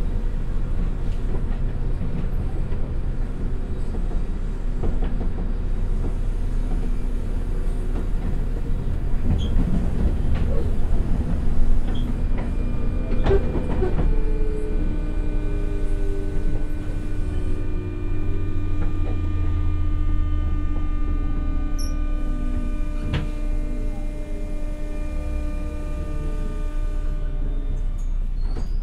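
Onboard running sound of a JR West 201 series electric train's motor car. It begins as wheel-on-rail rumble with joint clicks. About twelve seconds in, the thyristor chopper's steady high-pitched whine sets in, and the MT60 DC traction motors whine downward in pitch as the train decelerates under electric braking toward a station stop.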